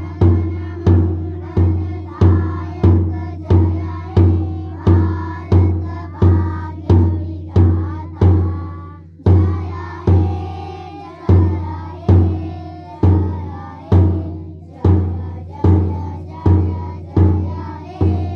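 Bass drum struck with a padded mallet at a steady march beat, about three booms every two seconds, with children's voices singing along; the drumming stops near the end.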